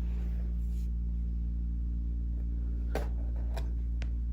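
Steady low hum with a few small clicks from a screwdriver and screws being worked on a laptop's bottom case, the sharpest about three seconds in and two fainter ticks after it.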